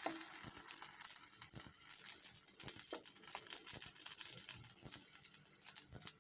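Butter sizzling faintly in a pan under a toasting bread sandwich, with many small crackling pops.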